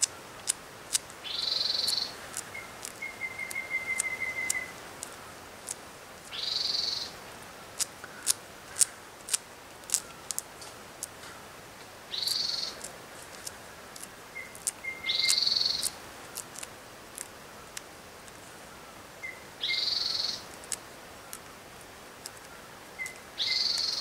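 Birds calling: a short harsh call repeated six times, every few seconds, some with a run of quick, lower piping notes just before or after, among many sharp ticks.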